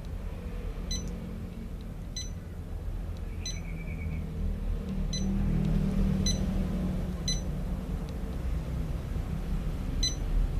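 Short electronic key-press beeps from a Janome MC500E computerised embroidery machine's control panel, about seven at irregular intervals, over a steady low hum.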